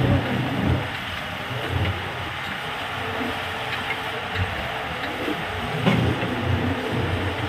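Borewell drilling rig running: a steady heavy machine din with a low engine hum that swells and fades, and a few scattered knocks, the sharpest about six seconds in.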